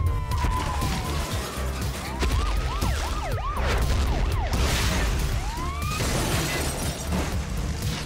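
Cartoon action sound effects over a musical score: police sirens wail in several short rising and falling sweeps, with crashes and breaking sounds over a heavy low rumble.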